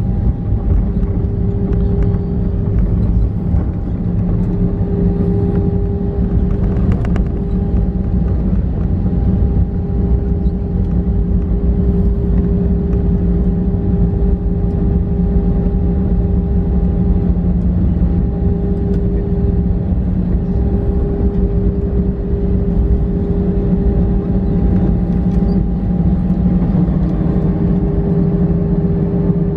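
Airbus A320 rolling out on the ground after landing, heard from inside the cabin over the wing with the ground spoilers raised. Its CFM56 engines hum steadily with a few held tones over a continuous low rumble from the wheels on the pavement.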